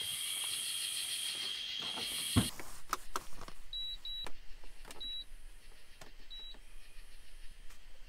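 Zero Breeze Mark 2 portable air conditioner's control panel beeping as its buttons are pressed: four short high beeps, two close together, with small clicks of handling. It follows a steady high hiss that cuts off sharply about two and a half seconds in.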